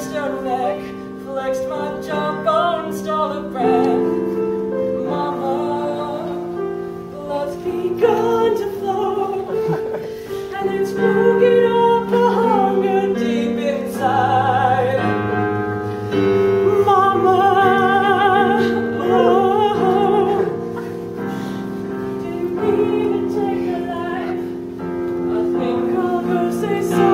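Music: a solo singer in an operatic style with wide vibrato over held accompaniment chords.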